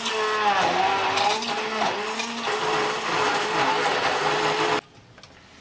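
Hand-held immersion blender running in a tall beaker, puréeing cooked liver and garlic with a little melted lard. Its motor pitch wavers up and down with the load, and it cuts off suddenly near the end.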